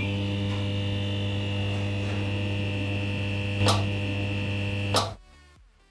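Neon-sign electrical hum sound effect: a steady low hum with a higher buzz over it, a short crackle a little before four seconds in, and a sudden cutoff about five seconds in.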